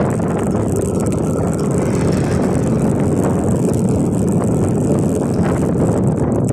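A motorcycle running steadily while riding along, its engine noise mixed with road and wind rush at the handlebar-mounted microphone.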